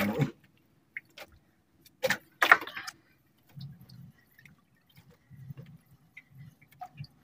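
Water splashing and dripping aboard a small fishing boat, with two louder splashes about two seconds in and fainter low gurgling of water in between.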